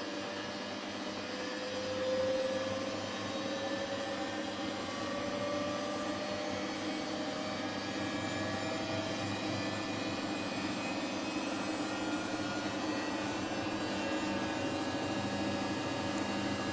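Samsung washing machine on its spin cycle: a steady motor hum with a whine that climbs slowly in pitch as the drum speeds up.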